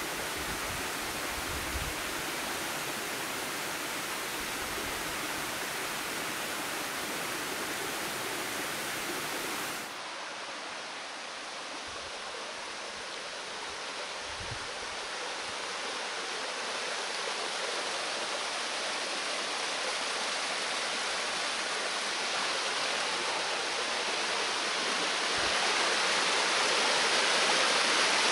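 Steady rushing of water falling from a small waterfall. About ten seconds in the sound changes abruptly, then grows slowly louder toward the end.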